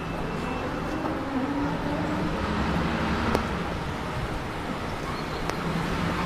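City street traffic: a steady low hum of bus engines at a bus stop under general traffic noise, with one sharp click a little past three seconds in.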